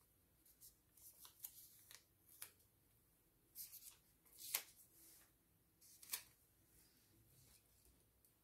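Faint, sparse rustles and light taps of paper sticker sheets being handled: a handful of short sounds, the sharpest about four and a half seconds in and another about six seconds in, over near silence.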